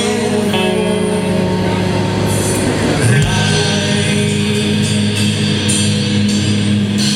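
Live rock band playing out the end of a song, with amplified guitars holding a chord and cymbals crashing over it. The chord changes about three seconds in.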